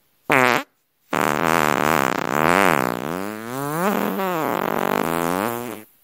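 Fart sound effect: a short blast, then, about a second in, a long drawn-out fart of nearly five seconds whose pitch wavers up and down before it cuts off.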